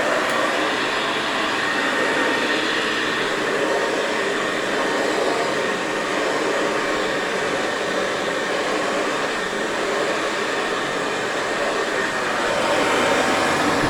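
Hoover Convertible 704 upright vacuum cleaner running steadily as it is pushed over carpet, getting a little louder near the end.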